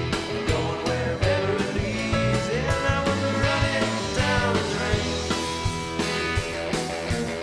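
Live rock band playing a song: electric guitar, bass guitar and drums with a steady beat.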